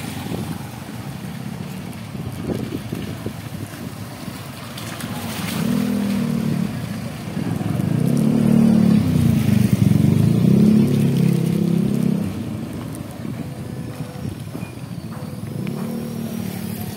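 Motor vehicle engine running with traffic noise around it. It grows louder about five seconds in, rises and falls in pitch as if accelerating through the gears, and is loudest a little past the middle before dropping back.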